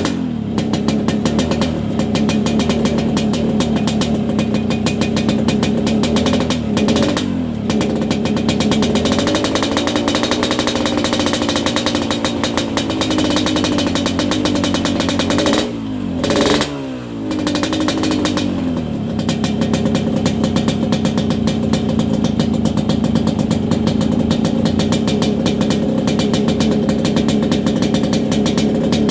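Yamaha RX-King's 135 cc two-stroke single-cylinder engine running, with a crisp, snoring rasp. The throttle is blipped twice, the pitch bending at each blip.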